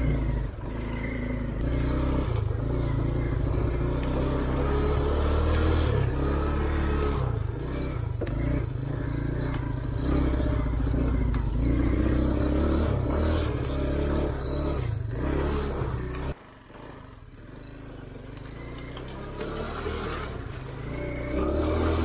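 Off-road motorcycle engine running and revving over rough ground, with scraping and clatter. The engine sound drops off abruptly about sixteen seconds in, then a quieter engine sound builds back up near the end.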